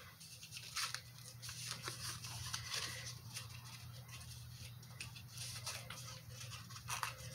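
Faint rustling and small scattered clicks of cardboard packaging being handled as a makeup brush is pulled out of its small box.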